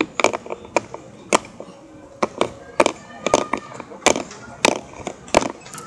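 Small plastic toys tapping and clicking together as a toy figure is pressed about in a plastic toy basin: a string of irregular sharp taps, roughly two or three a second.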